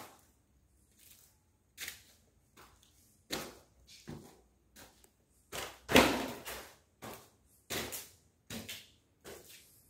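Footsteps on newspaper laid over stone stairs: the paper crackles and rustles underfoot with each step, at an uneven pace, loudest about six seconds in.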